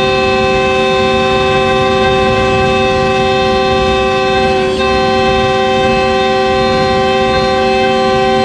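Locomotive's multi-tone air horn sounded in one long, continuous blast, with a short dip about halfway through. The engine runs underneath.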